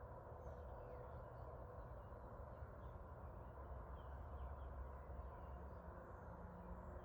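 Quiet outdoor background: a steady low rush with a few faint, scattered bird chirps.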